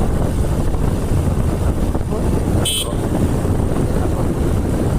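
A motorcycle being ridden: a steady engine and road rumble. About halfway through there is a short, high horn toot.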